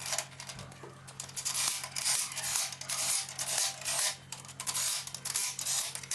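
Ratchet wrench clicking in repeated strokes, about two a second, as the crankshaft main bearing cap bolts are tightened.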